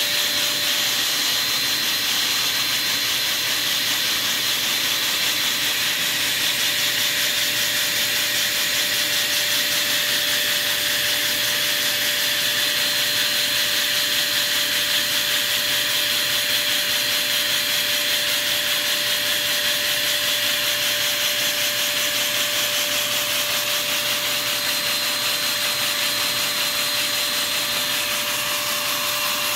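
Small vacuum cleaner running steadily with a steady whine, its suction driving a Lego two-cylinder oscillating piston engine.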